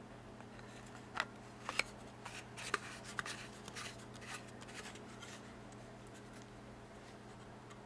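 Hard plastic clicking and scraping as a Goldwell colour measuring cylinder is handled, its threaded clear graduated tube being fitted into its grey plastic base. There is a quick run of sharp clicks and small scrapes between about one and five and a half seconds in.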